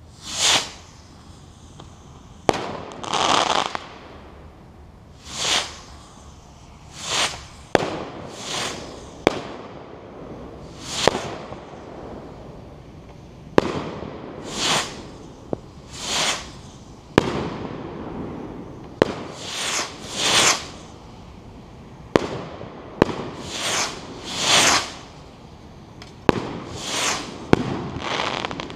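Consumer 1.3G firework rockets fired one after another. More than a dozen short whooshes rise and fade, with sharp cracks from the bursts between them.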